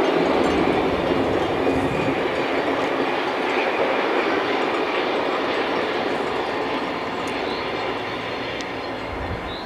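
Passenger train rolling across a viaduct: a steady rushing of wheels on rails that slowly fades as the train moves away.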